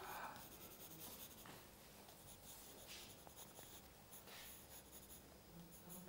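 Faint scratching of a pencil on sketchbook paper: short, repeated drawing strokes.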